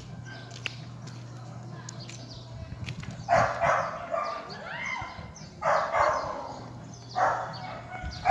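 A dog barking nearby, four loud barks spaced one to two seconds apart, starting a few seconds in.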